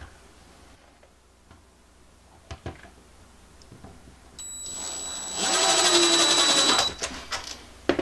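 Power drill running as it drives a screw into a drawer pull: it starts about four seconds in with a steady whine, runs louder for about a second and a half, then stops. A couple of light knocks from handling come before it.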